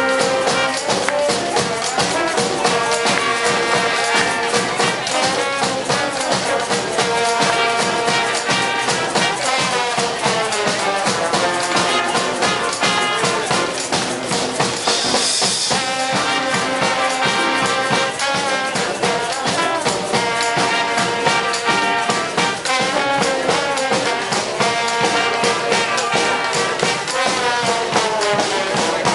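Street brass band playing live: trumpets and trombones holding and moving through sustained notes over a steady drum beat.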